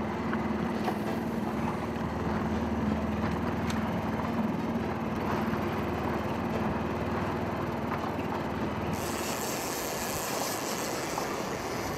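Outboard motor running steadily as the small boat trolls, a constant low hum with a couple of steady tones under a wash of noise. A higher hiss joins about nine seconds in.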